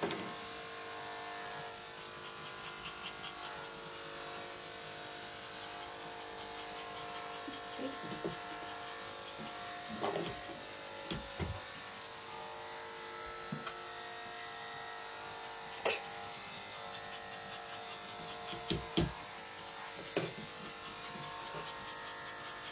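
Electric pet hair clipper running steadily during trimming, with a few short knocks.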